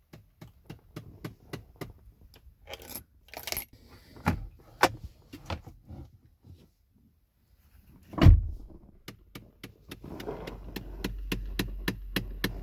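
Rapid even ticking from behind the glove box in a 2011–2014 Ford Explorer's dash, about four or five ticks a second, with keys jangling. The ticking stops for about two seconds, a loud thump comes about eight seconds in, and the ticking resumes with a steady low hum under it.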